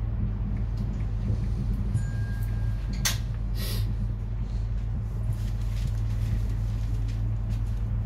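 Steady low hum inside the carriage of an ES2G Lastochka electric train. A sharp click a little after three seconds in is followed by a short hiss.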